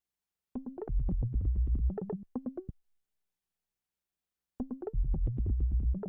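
Synthesizer sounding a short phrase of quick notes over deep bass, heard twice, each about two seconds long with a pause of about two seconds between.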